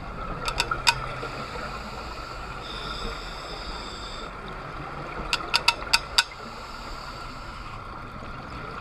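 Underwater reef ambience heard through an action camera's waterproof housing: a steady hiss, broken by two quick runs of sharp clicks, about four within the first second and about five a little past the middle.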